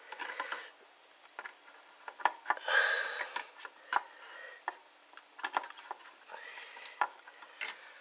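Sharp plastic clicks, taps and scraping as a RAM stick is pressed and worked into a motherboard's memory slot, with a longer scraping rustle about three seconds in.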